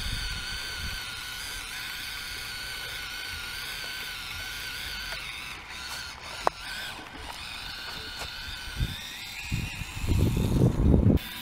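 Axial SCX24 micro rock crawler's small electric motor and gearbox whining as it drives, the whine rising in pitch near the end. A sharp click about halfway through and heavy rumbling thumps near the end, before the sound cuts off.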